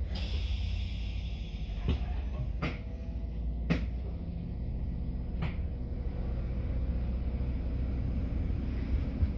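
Diesel passenger train's engine rumbling as the train pulls away from a station platform. A hiss at the start, then four sharp clunks over the next few seconds.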